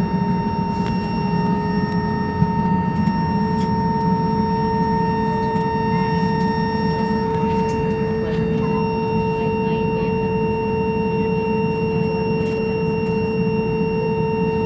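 Steady drone of a passenger jet's cabin noise with the engines running, with a steady whine over it that steps slightly higher in pitch about three seconds in.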